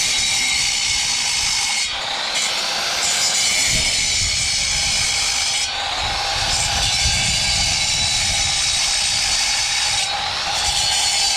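Loud steady hissing, dipping briefly about every four seconds.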